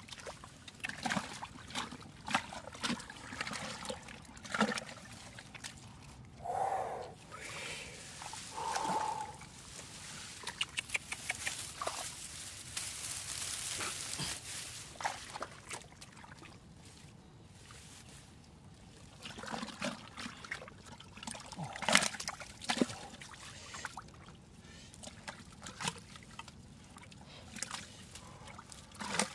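A hand digging and scooping in thick wet mud and muddy water, with squelching, sloshing and scattered small splashes. A stretch of trickling water comes near the middle, and the sharpest splash comes about three-quarters of the way through.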